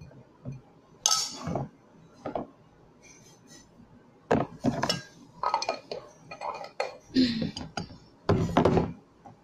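A metal spoon clinking and scraping against a glass food container, and dishes being handled, in a run of short, separate clatters.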